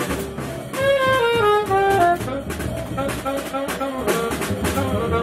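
Free jazz quartet recording: a saxophone plays a run of falling notes about a second in, then shorter notes, over drums with cymbals and a bass.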